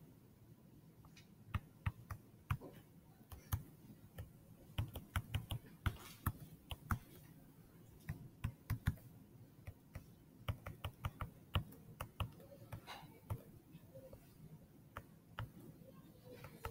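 Stylus tip tapping and clicking on a tablet screen during handwriting: faint, irregular clicks, several a second, starting about a second and a half in.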